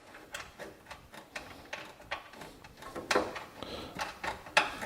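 Irregular light clicks and knocks of tools being handled on the hood ajar switch's mounting nuts, with a louder knock about three seconds in and another near the end.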